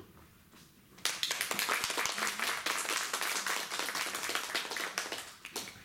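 Audience applauding: the clapping breaks out about a second in, holds steady, and dies away near the end.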